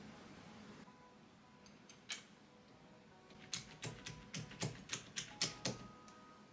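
Keys of a QK80 MK2 custom mechanical keyboard clicking: one click, then about a second later a quick run of about ten sharp clicks, roughly four a second. Faint background music plays underneath.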